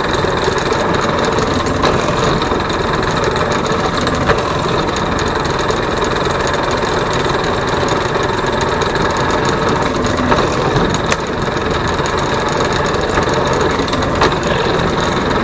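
An engine running steadily at idle, with a few faint clicks over it.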